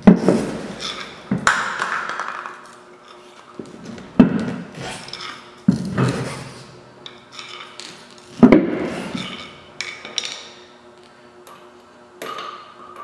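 Hand work at a truck's polished rear drive wheel: a series of sharp metallic knocks and clanks, each ringing briefly, with smaller ones near the end, over a faint steady hum.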